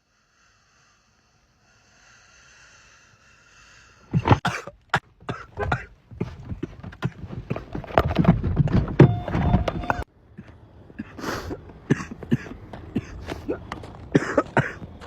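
A person coughing hard and repeatedly in a fit, starting about four seconds in after a short silence, the coughs coming in uneven bursts and heaviest in the middle.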